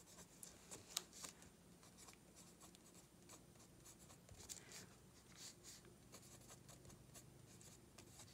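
Faint scratching of a pencil writing on sketchbook paper in short, irregular strokes, with a sharper tick about a second in.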